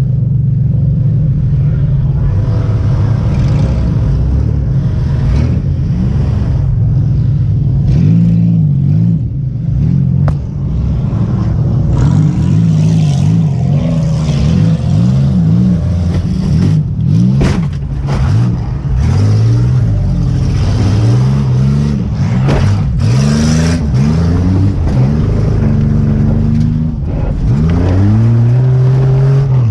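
Demolition derby car's engine, heard from inside the car, revving up and dropping back over and over as it drives and reverses. A few sharp bangs cut through about ten, seventeen and twenty-three seconds in.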